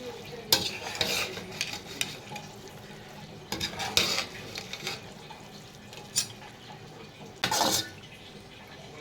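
A metal utensil scraping and knocking against a cooking pan in about half a dozen separate strokes while stirring the egg spaghetti, over a faint sizzle of frying.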